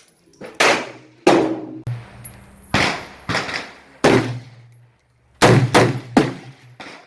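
Pistol shots on a shooting range, about eight at irregular intervals, each sharp crack followed by a short echoing tail.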